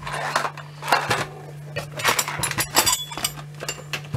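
Small metal clock parts and tools clinking and tapping against each other and the bench: a scattered run of short light clinks, thickest in the middle.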